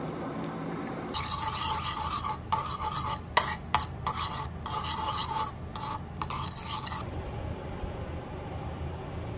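Metal spoon stirring and scraping a thick paste around a bowl, in uneven strokes with short breaks; it starts about a second in and stops about seven seconds in.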